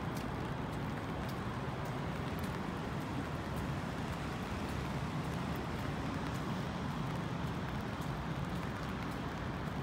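Steady city ambience in the rain: a continuous wash of rain over a low traffic rumble, with scattered light ticks.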